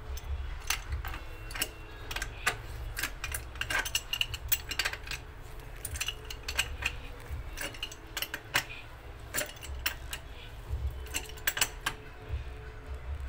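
Pipe wrench working a threaded metal pipe fitting on a wall stub, making irregular metallic clicks and clinks as the jaws grip, slip and turn.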